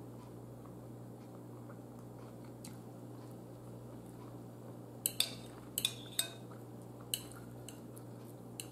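Metal cutlery clinking and scraping against a bowl several times in the second half, as food is scooped; before that only a faint steady hum.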